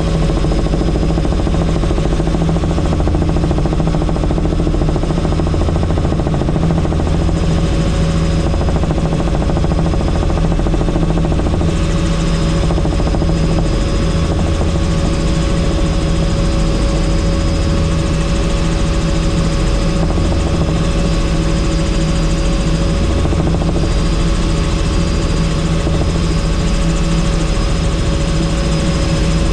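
Helicopter rotor and engine noise in flight: a loud, steady drone with a thin high whine running over it.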